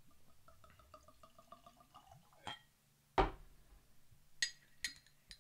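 Glass stopper being worked out of a whiskey bottle: a rapid series of squeaks, glass rubbing on glass, for about two seconds. Then a dull thump about three seconds in and three sharp glass clinks near the end.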